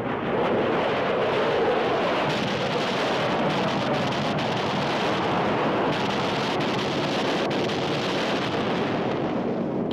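Steady, dense rumble of battle sound effects: armoured vehicles on the move amid explosions.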